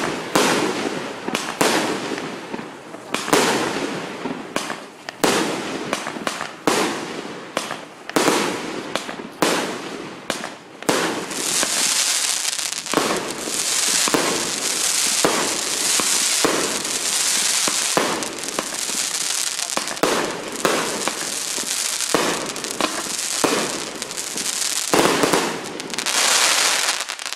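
A 25-shot, 1.2-inch fireworks cake firing: a quick series of sharp bangs as the shells burst one after another. From about halfway through, a dense, continuous crackling of crackling-willow stars runs between the bangs.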